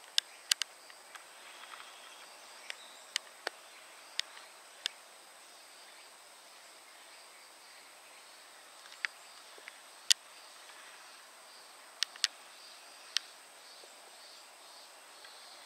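Outdoor insect ambience: a steady high-pitched insect whine with a fainter pulsing insect call beneath it, broken by about fifteen short, sharp clicks at irregular intervals, the loudest about ten seconds in.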